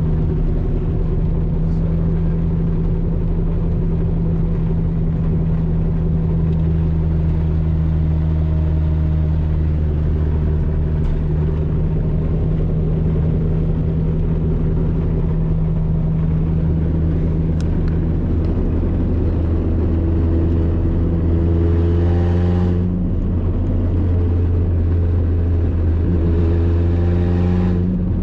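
Supercharged 2.0-litre four-cylinder engine of a 2005 Chevy Cobalt SS cruising steadily in gear with road noise, heard from inside the cabin. Near the end the engine pitch climbs under acceleration, drops sharply for a moment, then climbs again.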